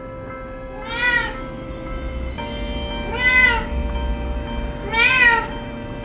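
Domestic cat meowing three times, about two seconds apart, each meow rising then falling in pitch.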